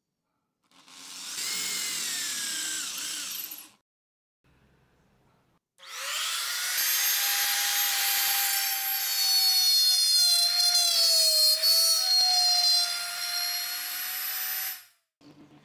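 A power drill with a twist bit drills a pilot hole into a white-faced wooden tabletop for about three seconds, its whine falling as the bit bites. After a short pause a Makita trim router starts and runs for about nine seconds with a high whine, dipping in pitch under load as it cuts a round recess into the top, before switching off.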